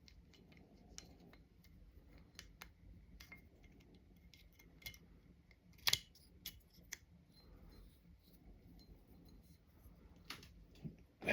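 Scattered light metal clicks and taps of Glock 17 parts being handled as the firing pin assembly is fitted into the slide, with a sharper double click about six seconds in.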